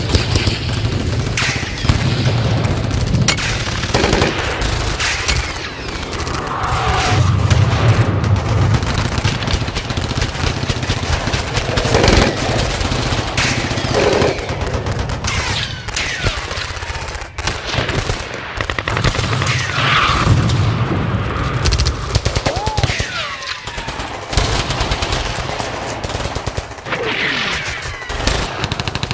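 Battle gunfire sound effect: continuous rapid machine-gun and rifle fire with low booms, and a few brief falling whistles among the shots.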